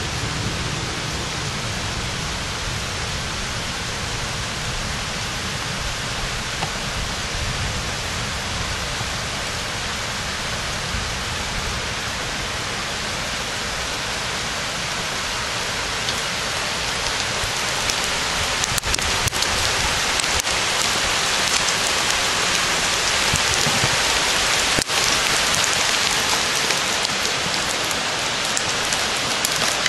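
Graupel (soft hail pellets) pattering steadily on roofs and a balcony, growing louder and brighter about halfway through, with a few sharper ticks.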